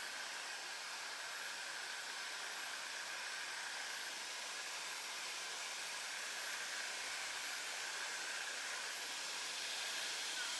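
Steady, even hiss of outdoor background noise with a faint, steady high drone running through it.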